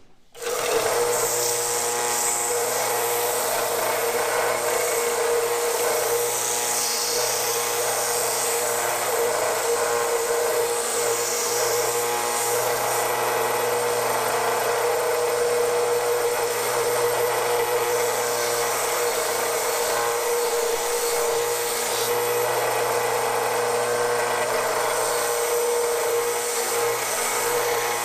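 Vertical belt sander running while a small steel part is held against the belt and ground, throwing sparks: a steady grinding sound over the motor's hum.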